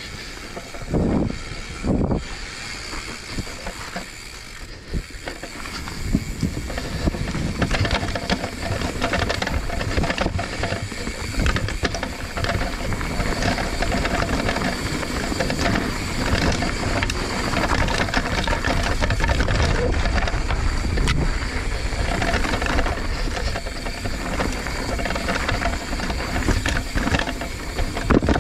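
Mountain bike riding down a rocky technical trail: tyres rolling over rock and dirt, with the chain and frame rattling and clattering constantly. Two thumps about one and two seconds in; the noise gets louder from about six seconds in.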